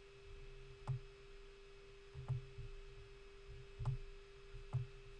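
Four sharp computer mouse clicks, spaced about a second or so apart, each with a soft thud, over a steady faint electrical hum.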